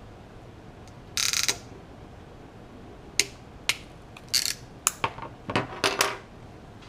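Hands working an RJ45 connector and network cable: a short scraping rustle, then a run of sharp plastic-and-metal clicks and little rattles, close together near the end.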